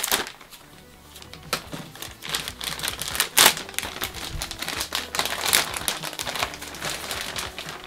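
Clear plastic bag crinkling in irregular bursts as it is pulled open by hand, loudest about three and a half seconds in, over background music.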